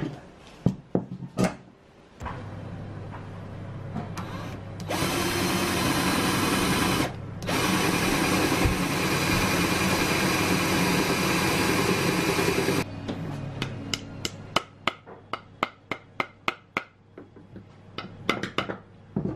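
A few sharp clicks as a clamp and dowel jig are set, then a cordless drill boring dowel holes through the jig into hardwood, running steadily for about two seconds, stopping briefly, then running for about five more. After it, a rubber mallet taps a wooden dowel home in a string of sharp knocks, about two or three a second.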